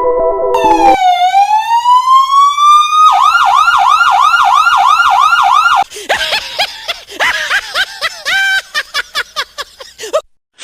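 Electronic police siren running through its tones: a slow rising wail, then a fast yelp of about three swoops a second. Shifting warbles and a rapid stutter follow before it cuts off suddenly near the end.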